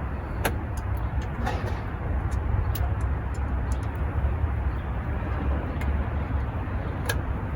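Steady low background rumble with a few sharp clicks and knocks of hand work on the outboard motor: about half a second in, around a second and a half, and near the end.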